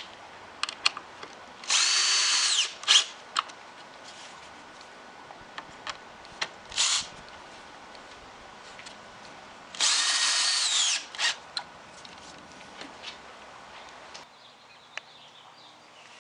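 Power drill run in two bursts of about a second each, its motor whine dropping in pitch as it stops each time. Between them come a few short blips of the motor and small sharp clicks and knocks.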